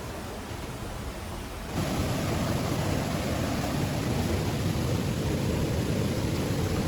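Steady rush of flowing river water, stepping up suddenly to a louder, fuller rush just under two seconds in.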